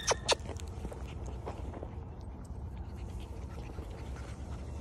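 Corgi puppies moving about close by: a few soft clicks near the start, then faint scattered ticks over a low steady rumble.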